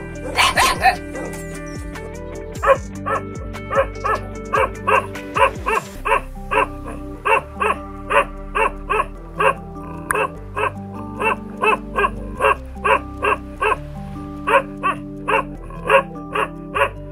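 Bakarwal dog barking over and over at an even pace, about two barks a second, over background music.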